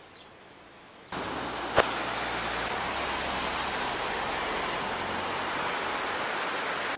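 River water rushing over a low weir and rocks, a steady, even rush that starts abruptly just over a second in. One sharp click comes shortly after it starts.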